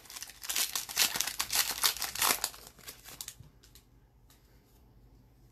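Plastic wrapper of a hockey card pack being torn open and crinkled: a dense run of crackles for about three seconds, then it stops and only a few faint ticks follow.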